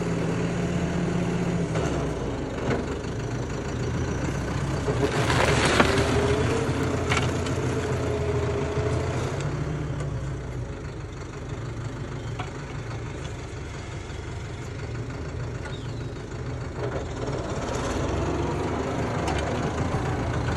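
Farm tractor's diesel engine running steadily as it pulls a disc plough through the soil, with a brief rush of noise about five seconds in. The engine grows quieter in the middle as the tractor moves away, then a little louder again near the end.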